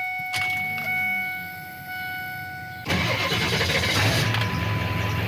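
A steady electronic warning tone sounds with the key on, then about three seconds in the Ford F-350's 7.3 L Power Stroke V8 diesel cranks and starts, settling into steady running. This is the first start on a newly installed Hydra tuner chip, and it starts.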